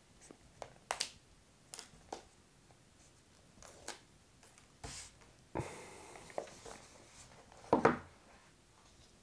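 A cardboard phone box handled and opened by hand, with its paper seal strip being peeled: scattered light taps and scrapes, soft rustling a little past halfway, and a louder scrape near the end.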